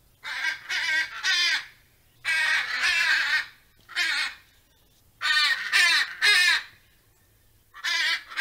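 A parrot squawking over and over: a string of harsh, loud calls, each lasting half a second to about a second, with short pauses between them.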